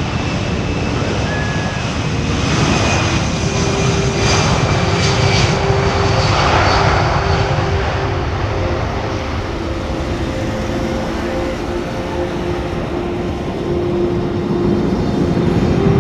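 Boeing C-17 Globemaster III's four Pratt & Whitney F117 turbofan engines running at high power for its maximum-climb takeoff: a steady, loud rush with a few humming tones, swelling a few seconds in and again near the end.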